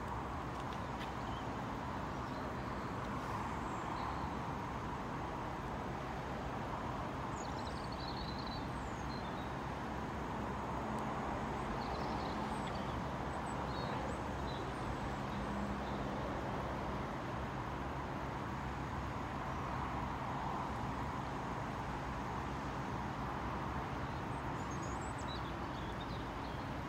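Steady outdoor background noise, a broad rushing sound that swells and fades slowly, with a few short bird chirps now and then.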